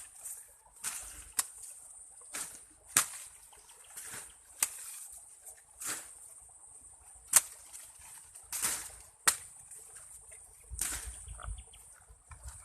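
Corn plants being handled during hand harvest: repeated sharp snaps and rustles, about one a second and irregular, as ears are broken off the stalks among dry leaves. A steady high insect drone runs underneath.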